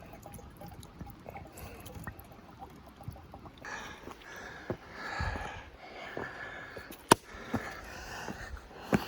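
River water splashing and trickling as a container is filled by hand, with a sharp knock about seven seconds in.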